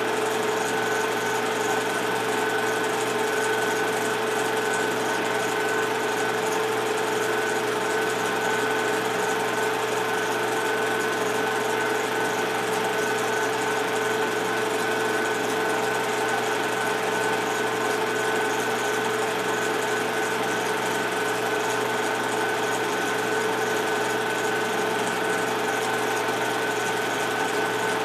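Movie projector running as the old silent film is played: a steady mechanical whir with a constant hum and a higher whine.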